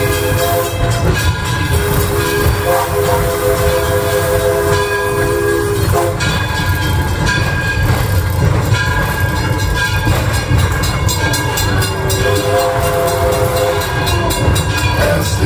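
Passenger train rolling along the track: a steady low rumble of the moving cars. Over it, held tones sound in stretches of one to three seconds and then stop.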